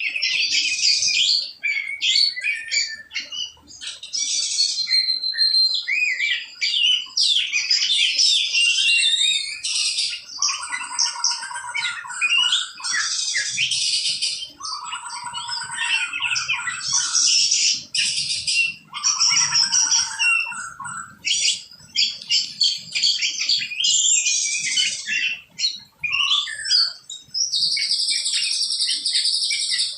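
Birds chirping and calling in a dense, continuous chorus of quick, high notes and trills, with a lower, harsher call three times in the middle.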